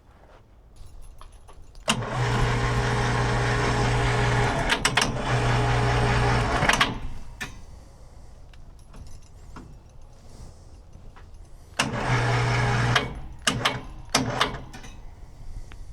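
Vevor electric winch motor running under power, pulling its cable in: one run of about five seconds with a brief dip partway, then a short second burst about a second long near the end. Sharp clicks follow each run.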